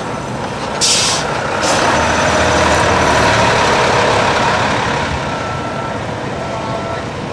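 A short burst of hissing air about a second in, over a steady rumble and noise, with faint short beeps repeating near the end.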